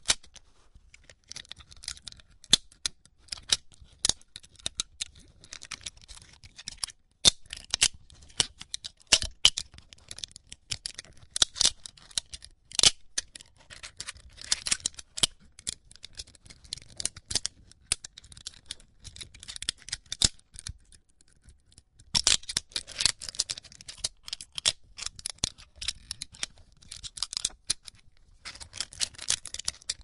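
Metal rattling: irregular runs of sharp clicks and clinks, with a short pause about two-thirds of the way through.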